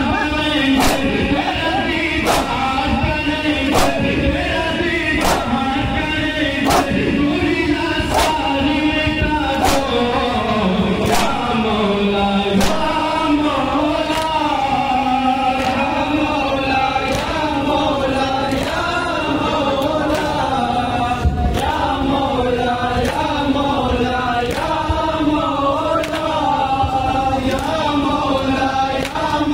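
Men chanting a Shia nauha together, led by a reciter on a microphone, with sharp slaps of matam (hands striking bare chests) in time with the chant, about one every second and a half.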